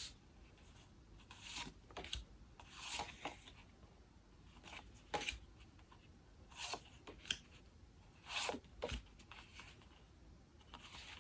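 Postcards and paper printed matter being handled and shuffled: short rustles and slides of card, coming every second or so.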